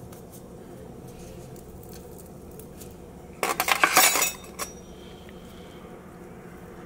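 Metal cutlery clinking against a metal serving tray: a quick clatter of several sharp clinks lasting about a second, a few seconds in, followed by one more small clink, as a knife is put down and a spoon taken up.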